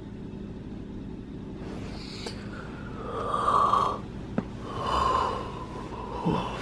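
A person snoring: two loud, drawn-out snores about a second and a half apart, with a short click between them, over a steady low hum.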